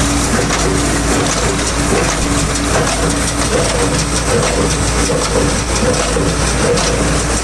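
Tractor engine running under load while it drives a New Holland BC 5060 square baler, the baler's mechanism clattering steadily over a low engine hum.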